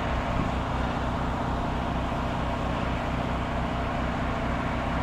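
Soft-wash spray gun spraying a fan of cleaning mix at low working pressure, about 60 PSI: a steady hiss over the steady hum of a motor.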